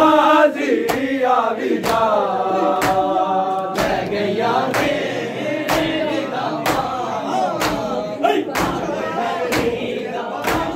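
A crowd of men chanting a lament together, with a sharp slap about once a second from hands striking bare chests in unison: matam, the rhythmic chest-beating of Muharram mourning.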